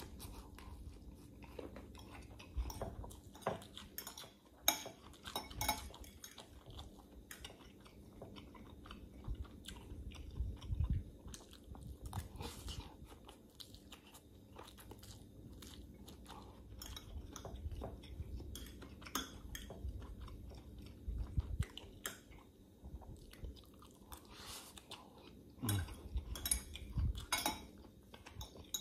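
A person eating stir-fried instant noodles: slurping strands of noodles and chewing them with wet, irregular mouth smacks, and now and then a fork clinking against the glass bowl.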